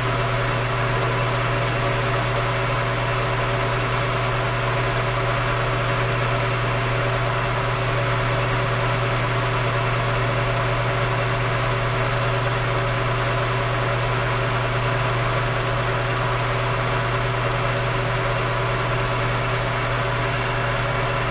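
Enco metal lathe running steadily at about 578 RPM with a steady low hum, while the tool turns down the shank of a drill bit held in a 5C collet.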